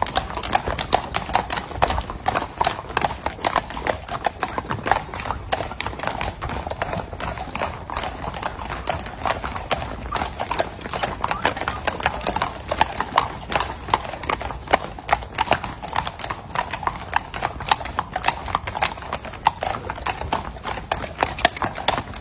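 Horses' hooves striking hard ground in a continuous clip-clop, a dense, uneven run of hoofbeats without a break.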